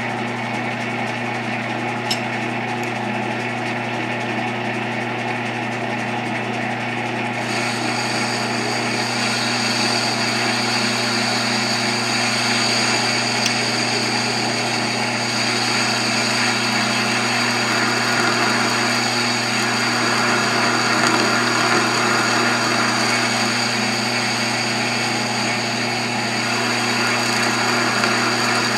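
South Bend lathe running at slow speed with a steady motor hum while a carbide parting tool is hand-fed into the spinning workpiece. About seven seconds in, a higher-pitched steady cutting noise joins the hum as the tool starts taking a chip.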